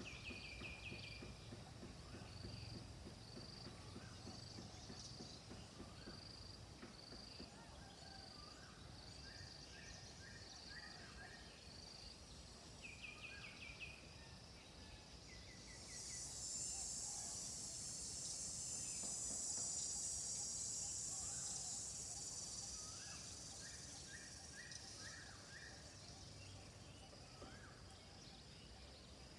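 Rural afternoon ambience of several birds calling, one repeating a short high note about once a second, with other chirps and short trills. About halfway through, an insect's high buzzing drone swells up to become the loudest sound, then fades away.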